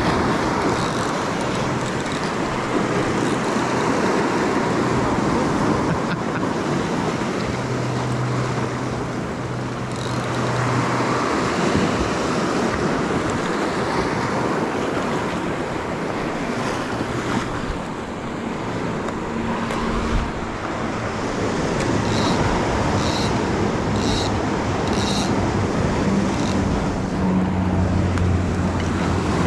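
Ocean surf washing and breaking against coastal rocks, with wind on the microphone. A handful of short clicks come in quick succession about three quarters of the way through.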